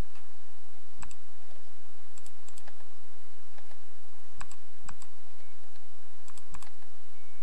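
Computer mouse and keyboard clicks: about seven short, scattered clicks, several in quick pairs, over a steady low hum.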